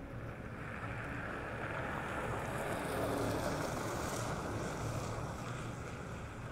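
Tyres of an electric Chevrolet Silverado EV pickup rolling on pavement during a tight low-speed turn, swelling as the truck passes close by about three seconds in and then fading as it pulls away, with wind on the microphone.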